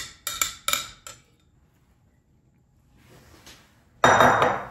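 Glass on glass: a small glass bowl knocks against the rim of a glass mixing bowl about four times in the first second as the last of the yeast-and-honey water is scraped out. Near the end a short, loud scrape as a wooden-handled dough whisk starts stirring the wet flour in the bowl.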